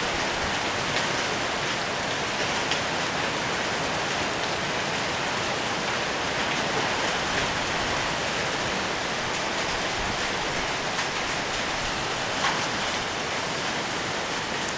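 Heavy rain and hail pouring down steadily, with a few sharp taps of hailstones striking.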